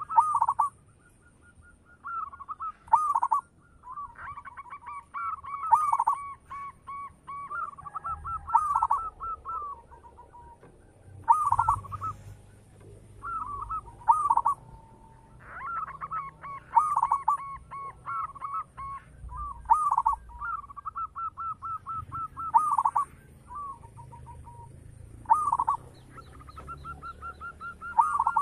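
Zebra dove (perkutut) singing: a dozen or so short phrases of rapid, rolling cooing notes, one every two to three seconds.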